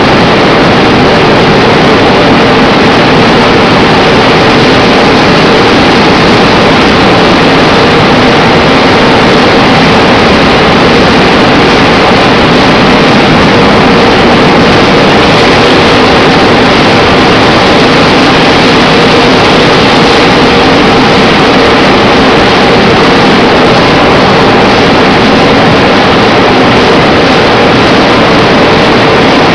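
Automatic tunnel car wash in operation: spinning foam brushes and high-pressure water jets hitting a car, a loud steady rush of spray and churning with a machine hum beneath.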